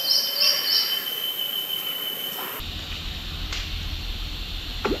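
Rainforest ambience: a bird gives a quick run of about five high chirps at the start, over a steady high insect drone. About halfway through, the sound cuts abruptly to a steady low rumble with a single click.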